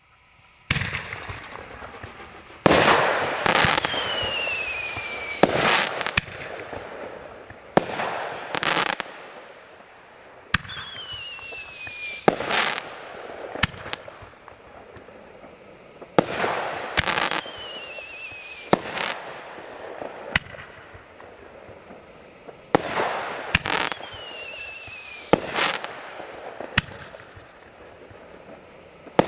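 Multi-shot firework firing at night: loud sharp reports every one to three seconds, with crackling between the shots. Several shots carry a whistle that falls in pitch for a second or more.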